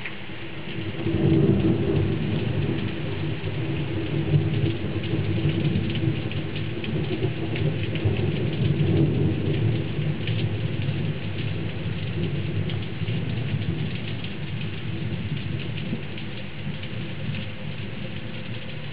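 Thunder rumbling long and low in a thunderstorm, swelling about a second in and slowly fading, over steady rain.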